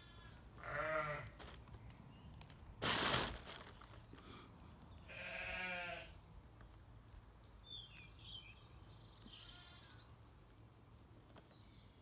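Sheep bleating twice, a wavering call about a second in and another around five seconds. A short, loud noisy burst comes near three seconds, and small birds chirp faintly around eight seconds.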